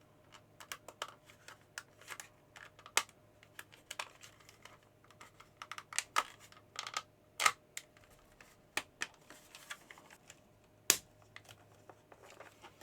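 Irregular plastic clicks and taps as a vintage calculator's plastic case is worked back together, with a few sharper snaps among them.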